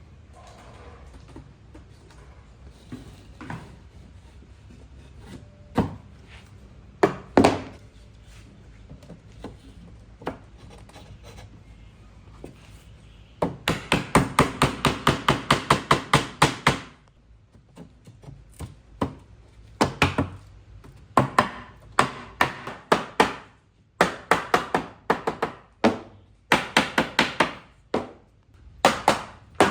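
Hammering on wood: a few scattered knocks, then fast runs of sharp strikes, several a second, in bursts with short pauses between them.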